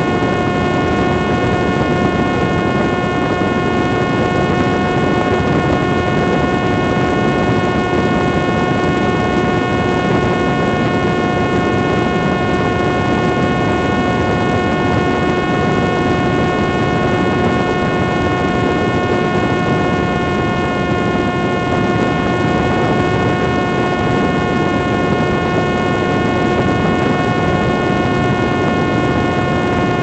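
Steady drone of a propeller motor in flight, holding one pitch throughout, over a rush of air.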